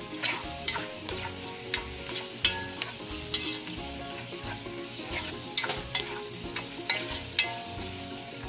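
Marinated beef strips with onions and tomatoes sizzling in a pot while a spatula stirs them, scraping against the bottom of the pot in frequent short strokes.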